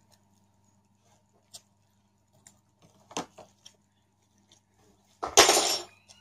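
Scattered light clicks and taps of dishes and cutlery at the table, then one loud, brief noisy clatter a little after five seconds in.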